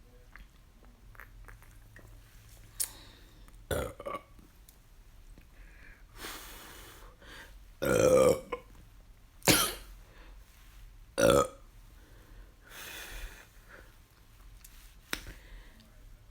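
A woman burping about four times, brought on by gulping carbonated Sprite; the longest and loudest burp comes about eight seconds in.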